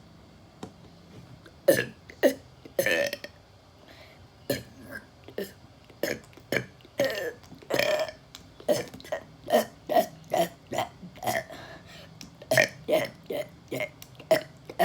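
A man burping over and over in a rhythm to carry a song's music beat: a few scattered burps at first, then a steady string at about two a second, with some longer drawn-out ones.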